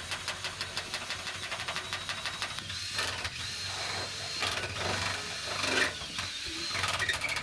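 Power drill running with a rapid clatter, drilling a hole through metal, with a steady high whine through the middle stretch.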